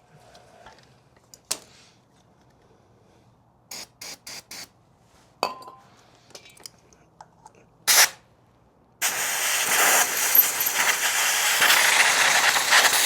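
Compressed-air blow gun blowing out an electrical connector: a few quick taps of air about four seconds in, a short blast near eight seconds, then one long, loud hiss of air lasting about five seconds.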